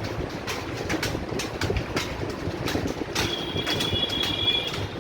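Many computer keyboards clattering at once as a roomful of typists works, a dense, continuous stream of key clicks. About three seconds in, a high steady tone sounds for about a second and a half over the typing.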